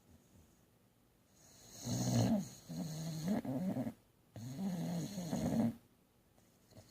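Boxer dog snoring in its sleep: two long snores with a wavering pitch, the first starting about a second and a half in and the second following right after it.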